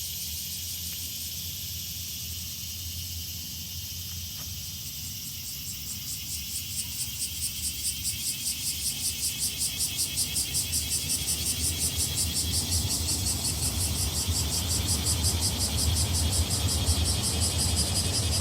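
Cicadas singing: a steady high hiss, joined about six seconds in by a pulsing call of roughly three beats a second that swells louder. A constant low hum lies underneath.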